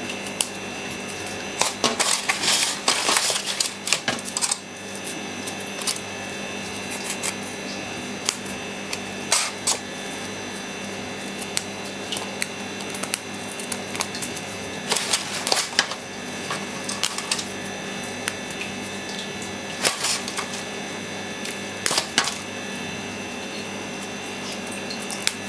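Fresh herbs, thyme among them, being stripped from their stems and torn by hand: scattered light crackles and rustles, busiest a couple of seconds in.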